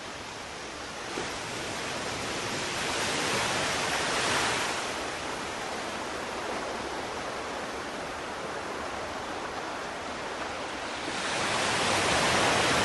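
Sea waves washing in, a steady rush of surf that swells twice, about four seconds in and again near the end.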